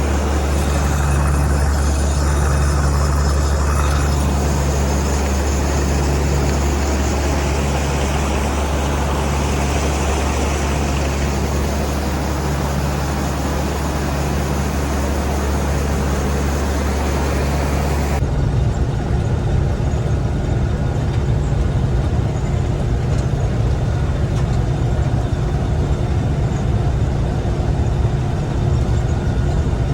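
Gleaner M3 combine running with a steady low drone and a throb that swells and fades about every second and a half. About eighteen seconds in the sound changes abruptly: it turns rougher and duller, losing its high end.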